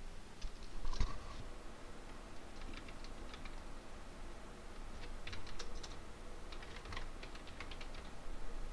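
Computer keyboard being typed on: short runs of key clicks with pauses between them, and one heavier key press about a second in.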